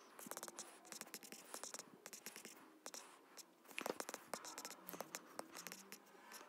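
Faint, irregular taps and scratches of a stylus writing on a tablet screen, a rapid patter of small clicks.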